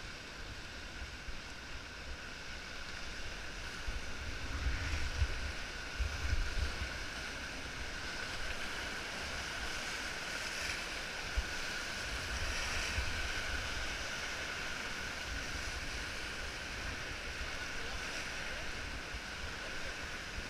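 Whitewater rapids rushing and splashing around an inflatable raft, with wind buffeting the microphone in gusts, strongest about four to seven seconds in. A single short knock a little past the middle.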